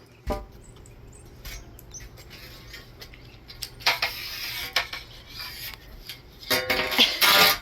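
Loose metal hardware clinking and rattling: a few scattered clicks, a clattering stretch about four seconds in, and the loudest clattering near the end.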